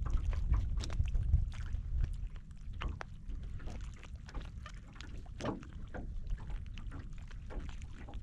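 Steady low wind rumble on the microphone, with scattered light knocks and clicks throughout.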